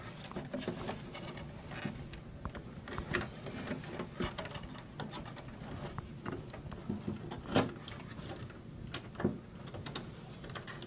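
A graphics card being worked loose and pulled from its expansion slot inside an open desktop computer case: scattered light clicks and scrapes of plastic and metal parts, with one sharper click about seven and a half seconds in.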